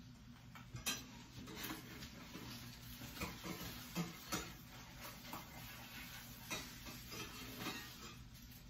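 Spatula clicking and scraping against a frying pan as an omelette is worked loose, in short scattered knocks over a faint steady hum.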